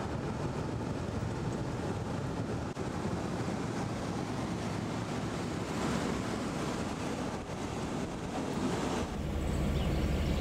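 Steady road noise inside a moving van, with wind rushing in at the open driver's window. About nine seconds in it gives way to a different steady low hum.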